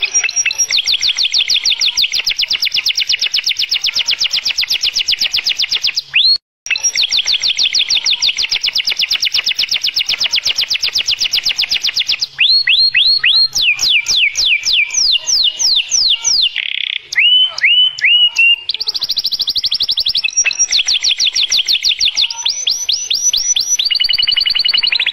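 Domestic canary singing a long courtship song of rapid high trills, broken by a brief pause about six seconds in. Around the middle it switches to a run of slower, falling whistled notes, then goes back to fast trills.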